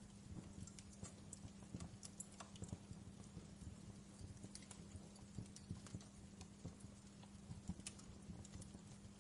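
Wood fire crackling in a fireplace: faint, irregular snaps and pops, several a second, over a steady low hum.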